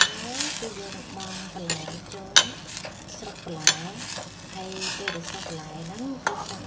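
Chinese kale sizzling as it is stir-fried in a stainless steel pot, with cooking utensils stirring and knocking sharply against the pot several times.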